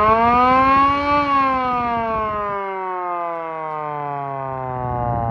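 3D-printed eight-port air raid siren wailing: its pitch climbs to a peak about a second in, then falls slowly as the rotor spins down. A low rumble underneath stops about halfway through.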